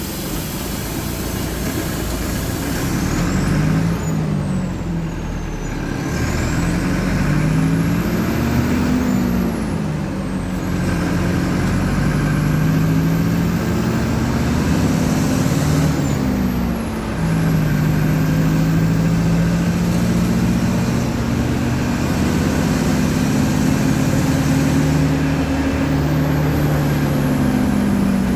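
Mercedes-Benz OF-1722M bus's four-cylinder turbo diesel engine pulling hard through the gears, its pitch climbing and dropping back at each gear change several times, then holding a long steadier pull.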